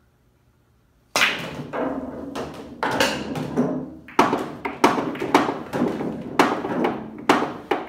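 A pool cue strikes the cue ball about a second in, and billiard balls crack apart in a multi-ball trick shot. A string of sharp clacks and thuds follows for several seconds as the balls hit each other and the cushions and drop into the pockets.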